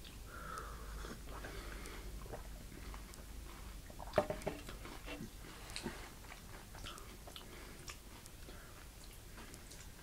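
Someone chewing and crunching candy-coated chocolate M&M's close to the microphone, with a few sharper crunches about four seconds in and again near six seconds.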